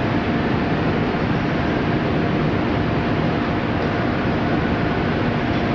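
Steady factory-floor machinery noise: a dense, even rumble with a faint steady hum running through it.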